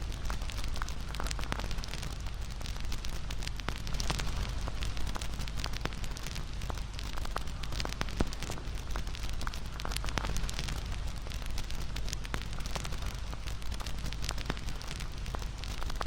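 Wood campfire crackling: a steady hiss of burning with frequent sharp pops and snaps throughout, over a low steady rumble.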